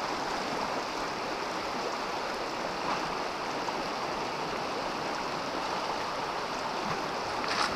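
Steady rush of a fast, shallow mountain creek running over cobbles.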